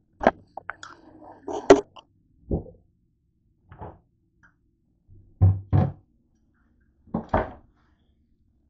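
Scattered knocks and clunks of kitchen things being handled and set down: about eight sharp knocks over several seconds, the loudest near two seconds in and a close pair about five and a half seconds in.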